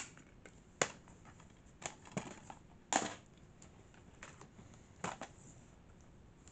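Plastic DVD cases being handled: a sharp click right at the start, then scattered knocks and clacks at irregular times as cases are moved and picked up.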